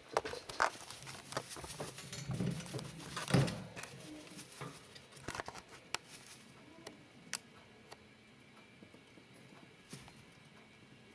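Gerbils scrabbling and rustling in a wire cage, with small clicks and taps against the metal bars. The sounds come thick for the first few seconds, then thin out to occasional clicks.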